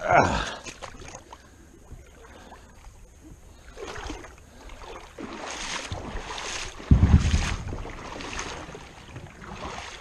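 Kayak moving through shallow creek water: a sudden loud sound at the very start, then a run of rhythmic water swishes from about four seconds in, with a heavy low rumble about seven seconds in.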